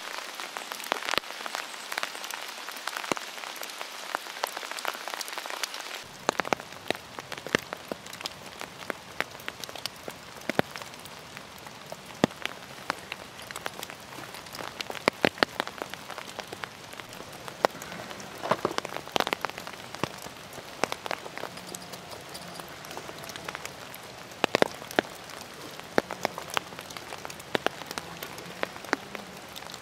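Rain falling: a steady patter with many scattered sharp drop ticks, some louder drops coming in small clusters.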